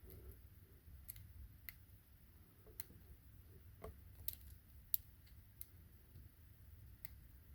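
Faint, irregular clicks of a hook pick working the pins of a solid-brass Kryptonite 452 padlock under light tension, during single-pin picking.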